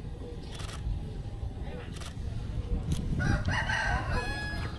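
A rooster crowing once, a drawn-out call starting about three seconds in, preceded by a few short sharp clicks over a steady low background rumble.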